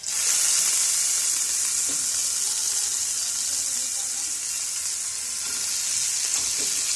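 Seasoned chicken breast frying in oil with garlic in a pan: a steady, loud sizzle that starts abruptly.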